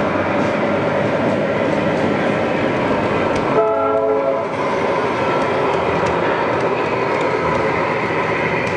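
Sound-equipped model of a Southern Pacific GE C44-9W diesel locomotive running past, its speaker playing a steady diesel engine sound over the rolling noise of the train on the track. About three and a half seconds in, it gives one short chime-horn blast of several tones at once, lasting about a second.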